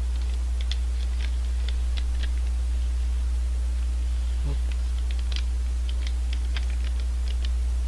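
Sparse, irregular small crackles and clicks of a snack wrapper handled close to the microphone at the mouth, over a steady low electrical hum.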